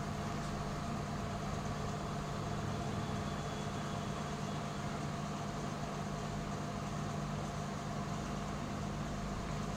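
A steady machine hum with a low drone and a few constant tones, unchanging throughout.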